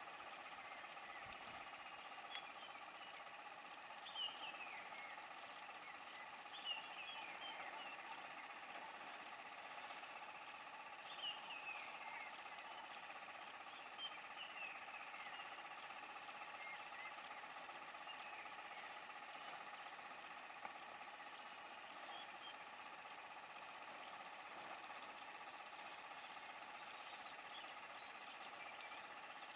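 Insect chirping: a high, even trill pulsing about twice a second, with a few short falling calls now and then.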